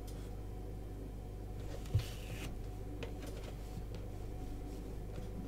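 Quiet room with a steady low hum, and a paintbrush being worked over paper: a soft swish of a stroke about two seconds in, with a light knock at the same moment.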